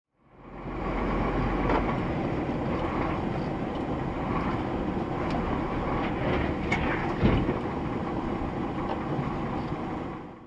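Car driving noise heard inside the cabin, a steady rumble with scattered knocks and clicks, and one heavier thump about seven seconds in.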